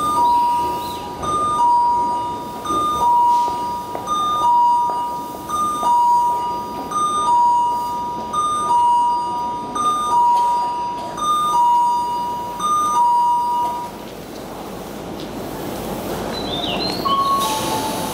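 Two-note electronic station chime on the train platform, a short high note then a longer lower one, repeating about every second and a half. It stops about 14 seconds in, leaving a broad crowd and station noise, with brief high chirping tones near the end.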